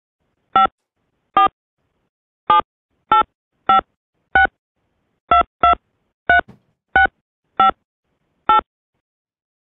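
Telephone keypad touch-tones (DTMF): about a dozen short two-tone beeps at an uneven pace, keying a credit card number into an automated card-services phone line.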